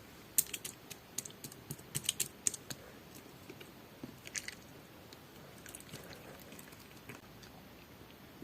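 Jelly-textured slime being worked by hand, giving sticky clicks and small crackling pops, thick in the first three seconds, a short cluster about four seconds in, then only scattered clicks.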